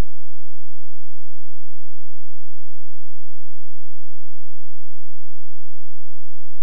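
Steady electrical mains hum with a faint hiss underneath: line noise on the soundtrack of a tape transfer, with no program sound.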